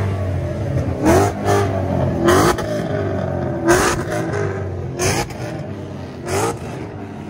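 Sports car's engine idling and revved in about six short throttle blips, each a quick rising rev that drops back to a low idle, heard at the exhaust tips.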